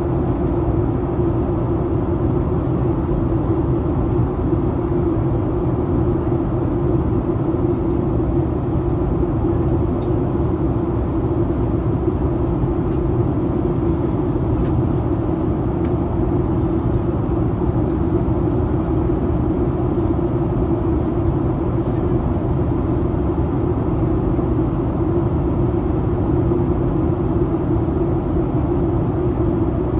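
Steady cabin noise of a Boeing 737-800 airliner in flight: rushing airflow and engine drone with a strong low hum, unchanging throughout.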